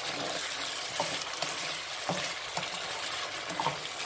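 Chicken gizzards and necks sizzling in hot oil and masala in a frying pan. A wooden spatula stirs them, scraping and knocking against the pan at irregular intervals of about a second.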